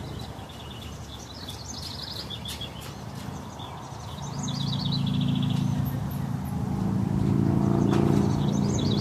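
Songbirds singing short, fast trilled phrases, high-pitched, a few times. From about halfway through, a steady low engine drone rises underneath and grows louder.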